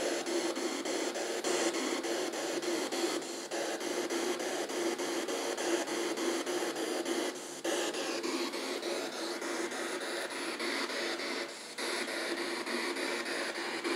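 P-SB7 spirit box radio sweeping through stations, played through an external speaker: a steady rush of static chopped into rapid short steps, with a low hum underneath. It drops out briefly three times.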